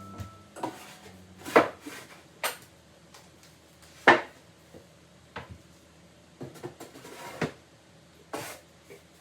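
Irregular knocks and clinks of hard objects being handled and set down, about six louder ones with softer taps between; no drill is running.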